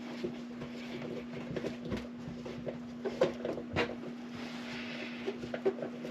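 Faint clicks and metal taps of a 1/4-inch hand nut driver turning a screw that fastens a new oven heating element, over a steady low hum.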